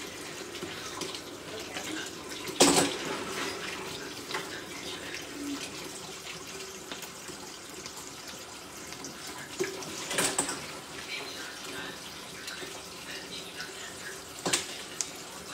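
Kitchen tap running into a sink while mussels and clams are washed in fresh water. A few sharp knocks cut through, the loudest about two and a half seconds in.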